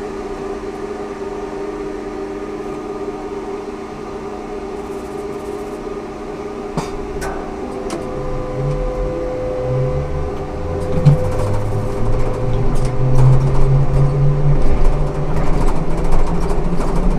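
Ikarus 280T trolleybus with GVM electrical equipment: a steady electrical hum at first, then about eight seconds in the traction drive starts pulling and its low whine steps up in pitch and grows louder as the trolleybus speeds up.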